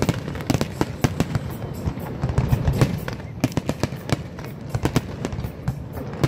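Aerial fireworks display: a rapid, overlapping barrage of shell bursts and crackling reports, dozens of sharp bangs over a continuous low rumble.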